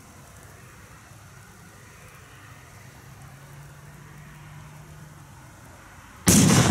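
Low, steady background noise while the firework smokes, then near the end a sudden loud bang as a Cobra 6 firecracker explodes, its noise dying away slowly.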